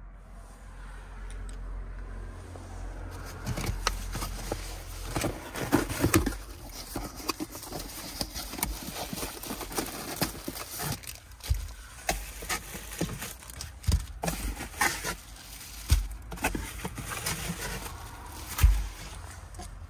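Cardboard box and bubble-wrap packaging being handled as items are unpacked: irregular crinkling and rustling with sharp crackles, starting about three seconds in, and a few dull thumps near the end.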